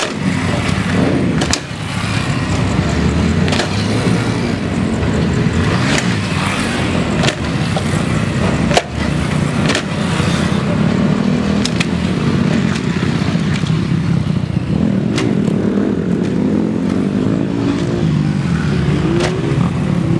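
Motorcycle engines running as motorbikes ride one after another up and over a ramp, passing close by. Occasional sharp clicks, and an engine revs up near the end.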